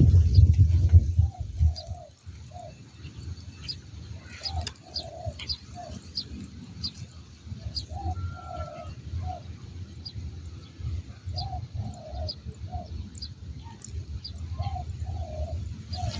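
Spotted dove cooing: short phrases of three or four soft coos, repeated every few seconds. Brief high chirps of small birds scattered throughout, and a low rumble in the first couple of seconds.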